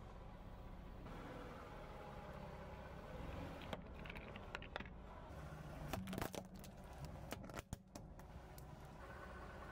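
Car tyre rolling slowly over toys on asphalt, crushing them with a series of sharp cracks and snaps from about four to eight seconds in, loudest around six seconds, over a low steady hum from the car.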